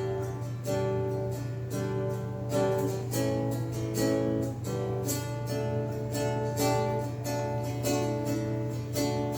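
Background music: strummed guitar chords changing every second or so.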